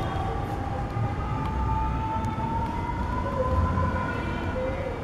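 Low rumble of distant street traffic with one long whine that slowly rises in pitch, in the manner of a far-off siren.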